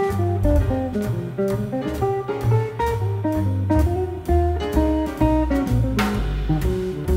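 Jazz guitar solo on an archtop hollow-body electric guitar, with a line of single picked notes over bass and drums keeping time on a cymbal. A brighter cymbal crash comes about six seconds in.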